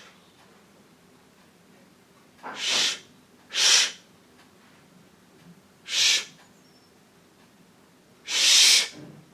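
Four short, breathy hisses from a person, each about half a second long, sounding like breath blown or hissed out. They are spaced unevenly: two close together about two and a half seconds in, one at six seconds and a longer one near the end.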